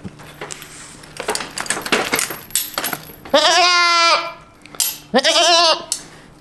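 Boer goat bleating twice, a long wavering bleat followed by a shorter one, as the tattoo clamp is pressed into its ear. Before the bleats come a run of clicks and rattles from handling.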